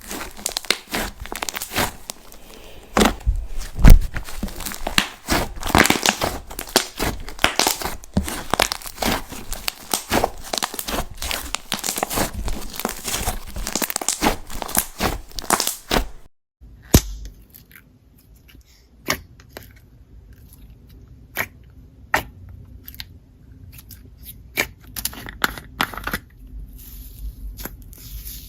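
Jelly slime being squished and stretched by hand, a dense run of sticky crackles, clicks and pops. After a short break about 16 seconds in, it goes on more quietly, with sparser single pops and clicks.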